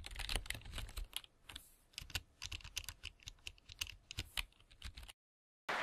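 Computer keyboard typing: a fast, irregular run of key clicks that cuts off abruptly about five seconds in.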